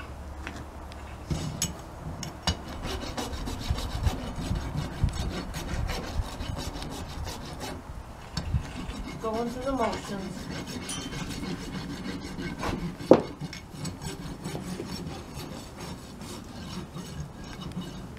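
Farrier's hoof rasp filing a horse's hoof held up on a hoof stand: repeated back-and-forth rasping strokes. A single sharp knock stands out about thirteen seconds in.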